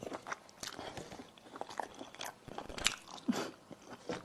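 Close-miked eating: crunchy bites and chewing, a quick irregular series of crisp crunches.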